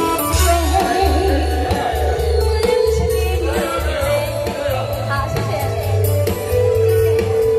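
A woman singing with vibrato over a backing track with a steady bass beat, amplified through a PA system.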